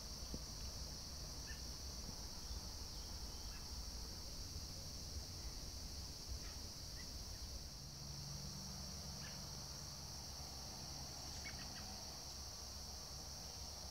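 Faint, steady high-pitched shrilling of an insect chorus, typical of crickets in the woods, with a few faint ticks.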